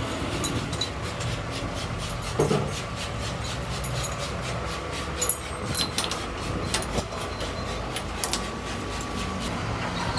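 Workshop noise: a steady low hum with scattered light metallic clicks and a few louder knocks, one about two and a half seconds in and several between five and seven seconds in.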